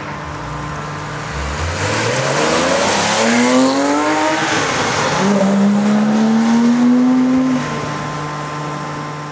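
Porsche 997 GT3 RS's naturally aspirated flat-six revving hard under full acceleration: the pitch climbs steeply through one gear, drops at an upshift about five seconds in, climbs again in the next gear, then the sound cuts back and fades as the car pulls away.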